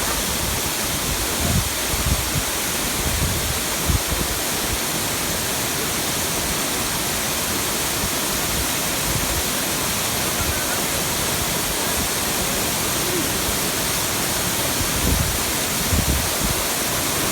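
Waterfall water rushing in a steady, even roar, with a few brief low bumps against the microphone about two and four seconds in and again near the end.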